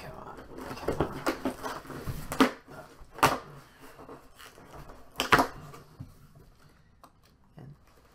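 A mailed package being opened by hand: irregular rustling, scraping and tearing, with three louder short bursts at about two and a half, three and five seconds in.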